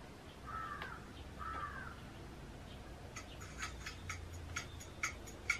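A bird calls twice, two short arching calls about a second apart. From about three seconds in come irregular sharp clicks, two or three a second, of fingers on a laptop's keys and trackpad.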